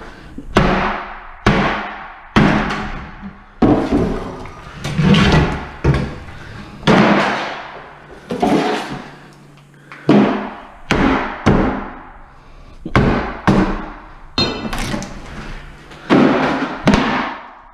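Steel pry bar banging against and prying apart a wooden kitchen counter and cabinet: a string of sharp bangs and cracks about once a second, each with an echoing tail. One bang near the end gives a brief metallic ring.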